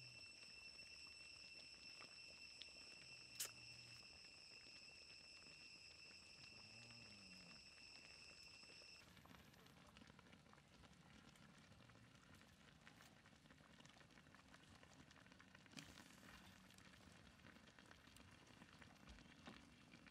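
Very faint crackling and fizzing of a wood fire and simmering curry in a wok. A steady high-pitched whine runs over it and stops about halfway through.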